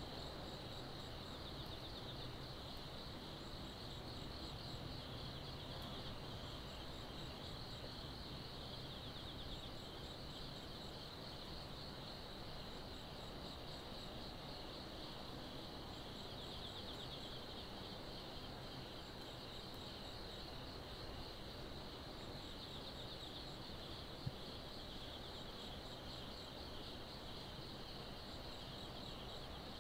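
Night insects such as crickets trilling steadily in a high, even band, with a second insect giving short runs of higher chirps about every two seconds. A low steady rumble sits underneath, and there is one faint click late on.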